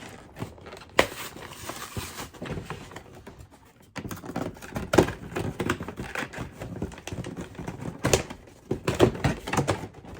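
A cardboard and plastic retail box being opened by hand: plastic crinkling with irregular clicks and taps.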